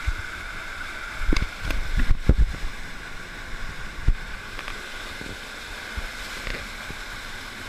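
Water sloshing and splashing around someone wading through a cave stream, with a cluster of dull knocks about a second in and another near the middle, over a faint steady high hum.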